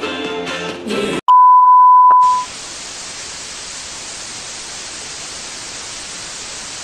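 Electronic music breaks off about a second in, giving way to a loud, steady, high-pitched beep lasting about a second, like a broadcast test tone. It is followed by a steady hiss of television static.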